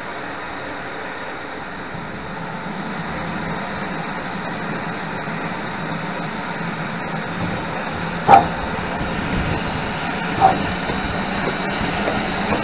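GWR King class 4-6-0 steam locomotive heard from beside the cab: a steady hiss and rumble of steam that grows slowly louder as the engine creeps forward, with a high hiss building in the second half and two short sharp clanks.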